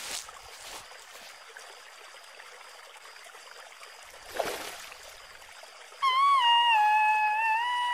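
Soft water-lapping ambience with a brief swish about four and a half seconds in. About six seconds in, a high, clear, wordless tone starts and steps down through a few held notes: the sea siren's song answering the five sung notes.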